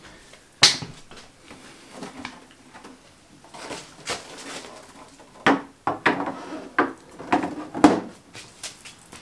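Knocks, clunks and scraping of a large fibreglass body panel being handled and set down onto the car's body tub. There is one sharp knock just under a second in and a run of five or so knocks in the second half as the panel is lowered into place.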